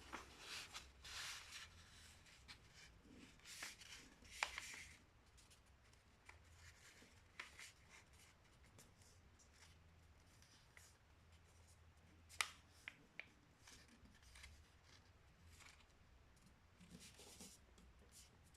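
A sheet of paper handled and folded by hand, with faint rustling and rubbing as the creases are pressed, and a few sharp crackles or taps, the loudest about four seconds in and two or three near the middle.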